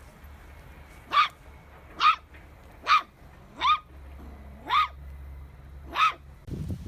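A dog giving six short, high barks about a second apart, each sweeping sharply up in pitch like a yip.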